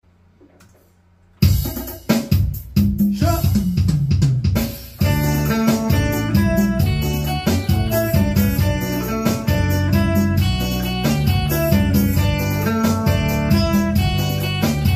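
Electric guitar and Yamaha keyboard playing together over a drum beat. Near silence for the first second and a half, then a loud entry with a few separate hits, settling into a steady groove about five seconds in.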